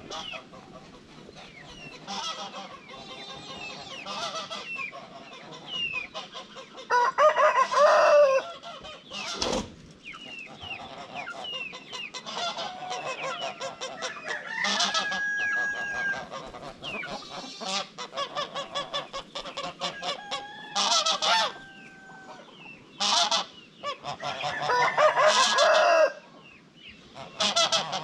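Farmyard poultry calling: loud calls come in bursts a few seconds apart over softer, continuous bird calls.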